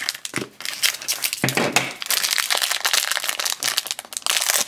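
Crinkling of small yellow plastic blind-bag wrappers being handled and squeezed open: a dense run of crackles that grows busier and louder about halfway through.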